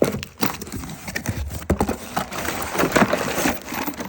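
Irregular clacking and knocking of small loose hardware and packaging being rummaged through in a cardboard box, with some rustling between the knocks.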